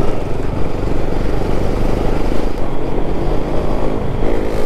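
KTM Duke 250's single-cylinder engine running as the bike gains speed on the road, mixed with a steady rush of wind and road noise.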